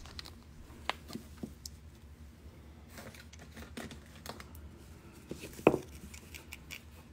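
A tumbled stone and its small plastic zip bag being handled: scattered plastic crinkles and light clicks, with one sharper tap near six seconds in.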